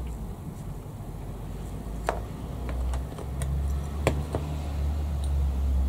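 A steady low rumble with a few light clicks and taps of small objects being handled on a workbench.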